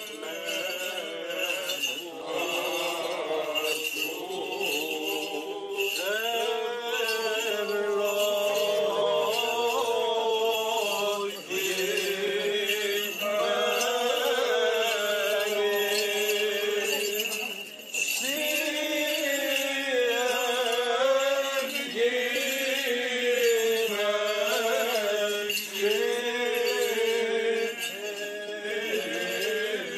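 Greek Orthodox Byzantine chant: voices singing slow, held melodic phrases, with two brief breaks between phrases. Small bells jingle lightly underneath.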